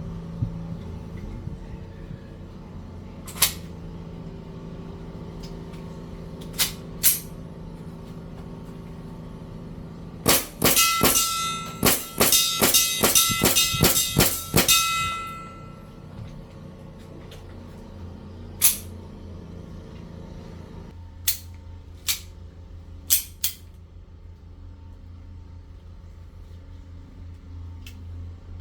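Airsoft guns firing: scattered single shots, then a rapid string of about a dozen shots near the middle, with a metallic ringing clang as the BBs hit a metal target. A steady low hum runs underneath.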